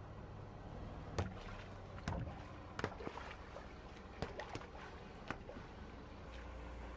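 Water balloons bursting one after another under a slowly rolling car tyre: about six sharp pops with splashes of water on wet asphalt, over a low steady hum of the car's engine.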